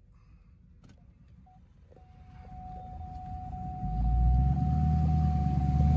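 Low rumble of a pickup truck heard from inside the cab, building from about two seconds in and then holding steady, with a steady high electronic tone sounding over it from about two seconds in.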